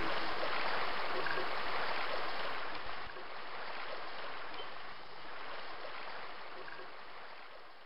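Flowing water, like a stream or river, running steadily and then fading out near the end.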